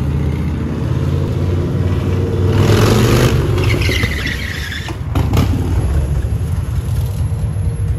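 Indian motorcycle's V-twin engine running through a loud aftermarket-style exhaust with a deep, steady note. It swells in a rev about two and a half seconds in, and a couple of sharp knocks come about five seconds in.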